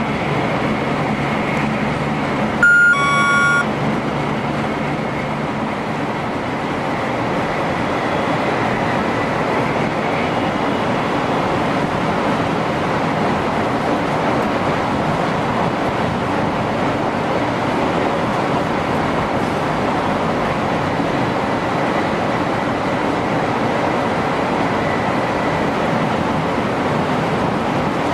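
Steady running noise of a 500 series Shinkansen at speed, heard from inside the driver's cab. About three seconds in, a short chime sounds once in the cab.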